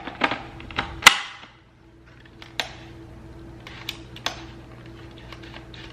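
Sharp plastic clicks and knocks from a rechargeable camping lantern being handled, with one loud snap about a second in and scattered lighter clicks after it.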